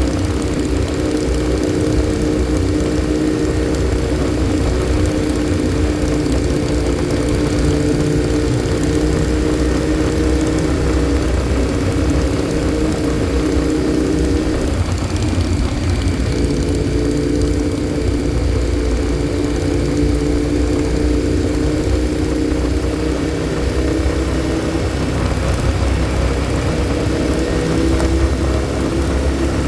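Motorcycle engine droning steadily at cruising speed, with wind and road noise. The engine note eases briefly about halfway through, then carries on.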